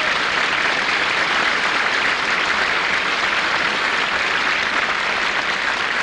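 Audience applauding, a dense clapping that holds steady throughout.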